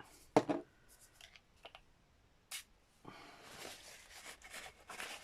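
A few sharp clicks and taps of craft supplies being handled, then from about three seconds in a steady rubbing scrape of ink being worked onto a gel printing plate.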